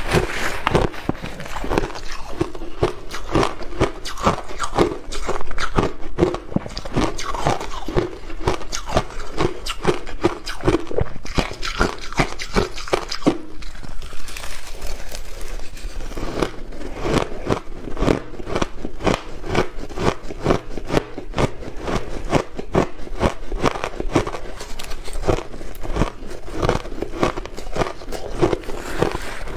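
Shaved ice being chewed close to a clip-on microphone: a dense, rapid run of wet crunches, easing off briefly about halfway through.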